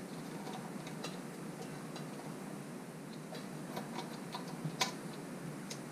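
Scissors snipping through a thin plastic protective bag over the top of a motorcycle fork tube: a scattering of small, irregular clicks, the loudest near the end.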